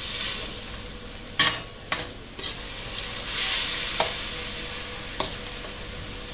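Chicken sizzling in a hammered carbon-steel wok while a metal spatula stirs it, with the steady hiss of frying broken by about five sharp clinks of the spatula against the pan, the loudest about a second and a half in.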